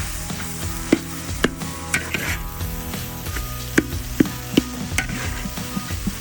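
Chicken gizzards sizzling as they deep-fry in hot oil, while a utensil stirs them and knocks against the pan about seven times.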